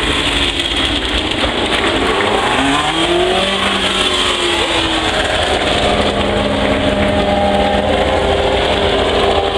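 Several Formula One cars driving past at low speed, their engines running at fairly low revs. The engine note rises and falls with throttle blips about two to four seconds in, then holds steadier as another car passes.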